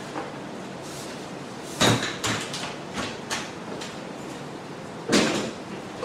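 Hard plastic clicks and clunks as a Shark IONFlex cordless stick vacuum is taken apart and its parts are handled. There is a solid clunk about two seconds in, a few lighter clicks after it, and another solid clunk about five seconds in.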